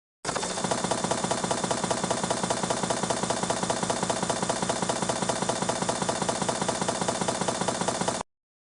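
An engine running steadily at idle with a fast, even throb. It starts abruptly and cuts off sharply near the end.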